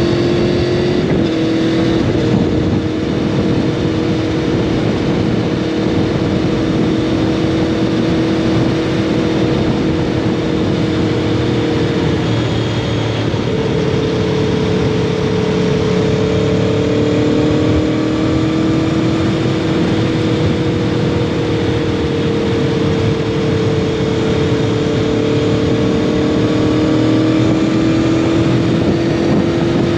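2021 Aprilia Tuono V4 motorcycle engine through its SC Project slip-on exhaust, running at fairly steady revs with the pitch drifting gently up and down, under a constant rush of wind and road noise.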